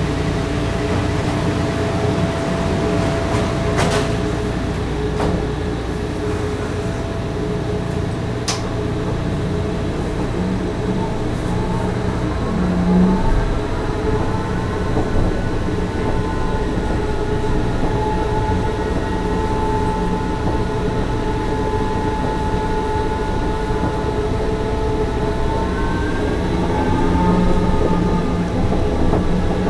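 Inside a Bombardier rubber-tyred driverless metro car, a steady door-warning tone stops with a click as the doors shut about four seconds in. The train then pulls away, its traction motors whining up in pitch as it gathers speed over the steady rumble of its running.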